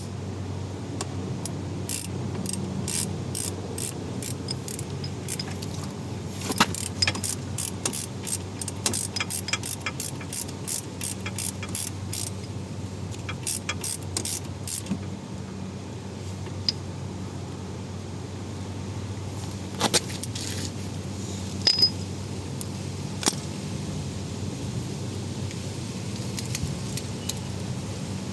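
Hand tools working on the wheel hub: runs of sharp metallic clicks, about two to three a second, for the first half, then a few scattered clinks, over a steady low hum.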